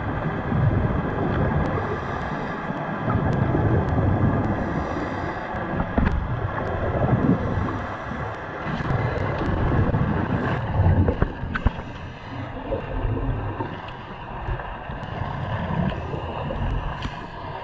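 Water noise picked up by an underwater camera: a low rumble that surges and ebbs every second or two, with scattered sharp clicks.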